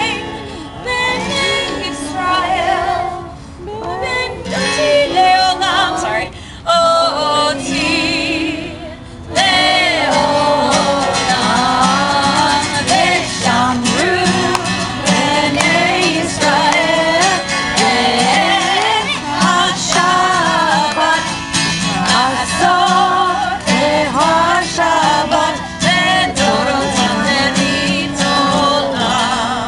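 A live song: a woman singing to her own strummed acoustic guitar, with children's voices singing along. The sound thins briefly and then grows fuller about nine seconds in.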